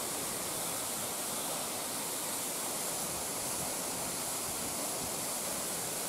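A waterfall about 30 m high, its water falling down rock walls onto a flat pool: a steady, even rush.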